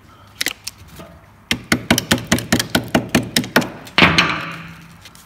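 A quick run of sharp taps, about five a second, then one heavier knock that rings on for about a second.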